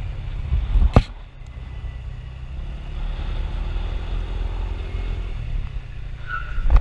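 Motor scooter riding along with heavy wind rumble on the microphone over the small engine, a sharp knock about a second in, and a brief high tone just before the end.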